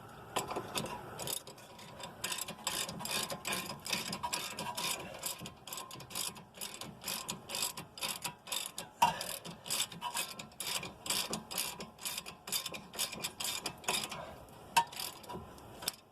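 Hand ratchet wrench clicking in rapid runs with short pauses, running a nylock nut down onto a tie rod end stud; the nut's nylon insert holds it, so it has to be ratcheted all the way on.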